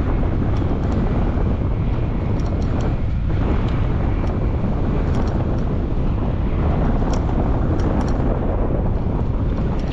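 Steady wind buffeting the microphone, a continuous rush heaviest at the low end, with a few faint ticks.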